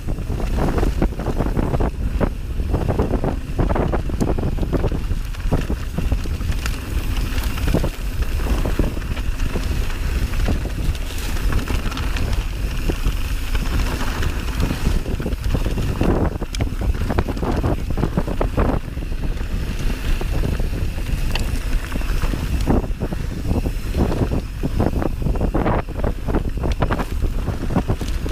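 Wind buffeting the microphone of a mountain bike's on-board camera as the bike rides a dirt trail, with irregular clicks and rattles from the bike and tyres over rough ground.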